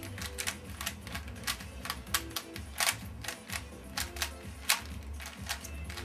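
Black DIY 3x3 speedcube being turned by hand: quick, irregular plastic clicks as its layers snap round, several a second.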